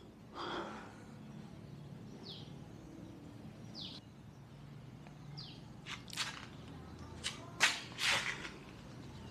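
Three short falling bird chirps, about a second and a half apart, followed by a few sharp knocks in the second half.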